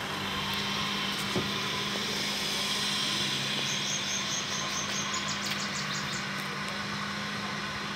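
Vehicle engine idling with a steady low hum. A rapid run of high chirps joins it about four seconds in.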